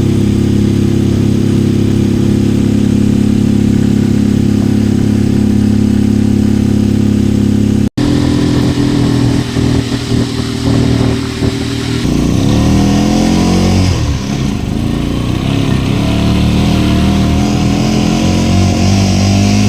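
Viar three-wheeled motorcycle engine running on the move, steady at first; after a break about eight seconds in, the engine speed rises and falls repeatedly.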